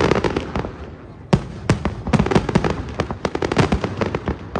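Fireworks display: many sharp bangs and crackles from aerial shells bursting in quick succession, with a rumble carrying between them. A short lull comes about a second in, broken by a loud bang.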